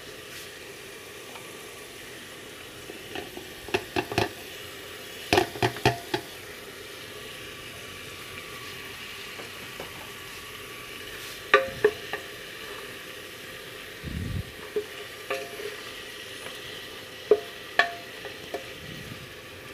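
Beef ribs and tomato sizzling as they fry in an aluminium pressure cooker, with a spoon stirring and knocking sharply against the pot now and then.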